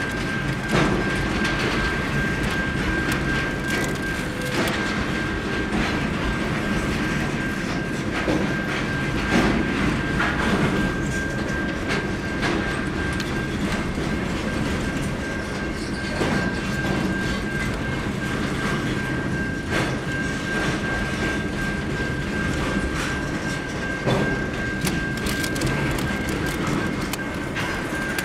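Double-stack container freight wagons rolling past at close range: a steady rumble of wheels on rail with irregular clicks and clacks, over which a thin, steady high-pitched whine holds.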